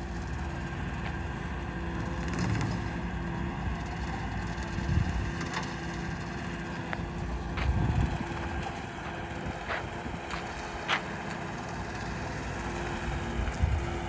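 Skid steer and its hydraulically driven weed-cutting attachment running steadily, swelling now and then as it works through the weeds. Sharp cracks and snaps come as dry weeds and debris are shredded.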